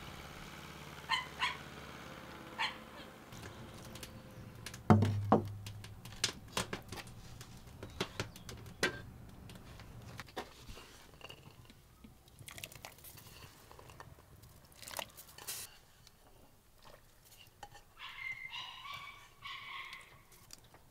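Earthenware pots and bowls being handled and set down: a string of knocks and clinks, the loudest about five seconds in.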